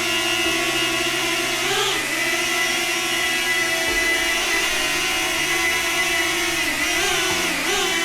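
DJI Flip quadcopter hovering, its propellers giving a steady, buzzing whine with many overtones. The pitch dips and recovers about two seconds in and again near the end as the motors adjust their speed.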